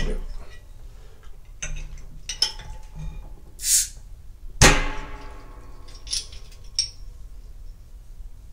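A crown-capped COEDO Beniaka beer bottle being opened: a short hiss of escaping gas about three and a half seconds in as the cap comes off, then a sharp clang that rings on for about two seconds, with a few small clicks after.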